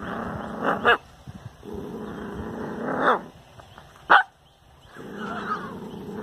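A dog growling in long low stretches, each broken off by a sharp bark, with three barks in all.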